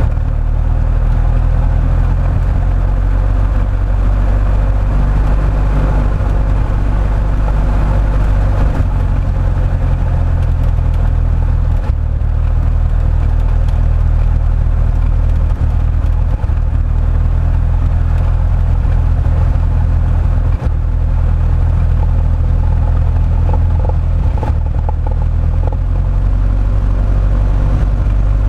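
Light biplane's piston engine and propeller running steadily, heard close up from the cockpit as a loud, deep drone.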